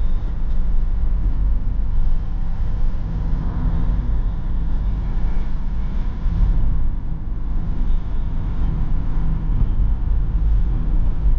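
Inside the cabin of a 2004 BMW E46 320d on the move: the 2.0-litre four-cylinder turbodiesel runs at a steady pace under a constant low rumble of road and tyre noise.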